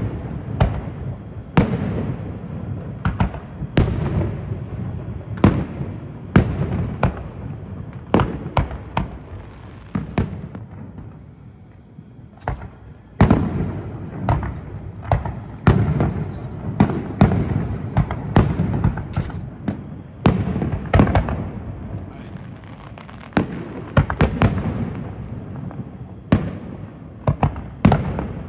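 Aerial firework shells launching and bursting overhead: a long, irregular string of sharp booms, often one to two a second, with a short lull of a few seconds near the middle.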